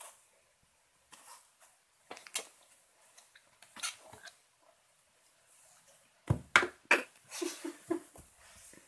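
Soft rustling and scattered light taps from hands and the camera being moved about, with a cluster of louder knocks and bumps about six to seven seconds in.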